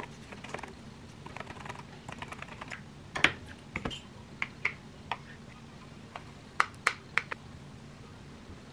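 Scattered light clicks and taps of plastic kitchenware while rice is packed by hand: a plastic rice-ball mold opened and pressed into a plastic lunchbox, and a metal spoon against a bowl. A few sharper clicks come about three seconds in and again around seven seconds in.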